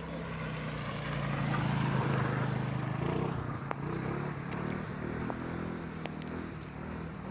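A motor vehicle engine running nearby, growing louder to a peak about two seconds in and then easing off, its pitch stepping up and down in the second half, with a few light ticks.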